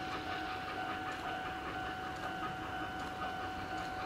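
Steam locomotive C58 363 chuffing steadily as it approaches under steam and working hard, about four exhaust beats a second. A steady high tone runs alongside it.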